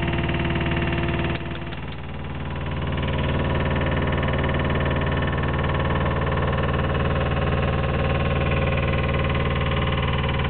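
Engine of a Flow Tex HDS13 horizontal drilling rig running steadily. About a second and a half in, a steady whine cuts out and the sound dips briefly, then builds back up and runs evenly.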